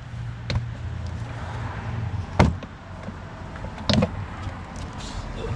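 Plastic engine cover being pulled off its mounts: three sharp pops or knocks, the loudest about two and a half seconds in, over a steady low hum.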